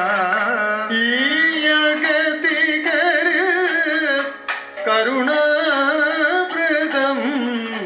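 Kathakali accompaniment: male singers singing a Carnatic-style melody with wavering, ornamented pitch over a steady held note, punctuated by frequent sharp drum and percussion strikes.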